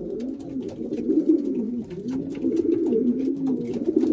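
Racing pigeons cooing in a loft: several overlapping low, rolling coos repeating without a break, typical of cock pigeons contesting their nest boxes.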